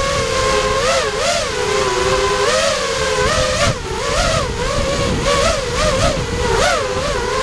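ImpulseRC Alien FPV racing quadcopter's brushless motors whining, the pitch swinging up and down again and again with quick throttle changes, over a low rumble.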